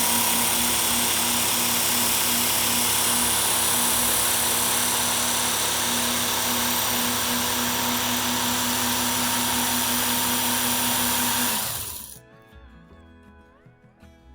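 Work Sharp Ken Onion Edition electric belt sharpener running at about three-quarter speed, its abrasive belt grinding the edge of a pocket knife drawn through it. It runs steadily, then winds down and stops about twelve seconds in when the trigger is released.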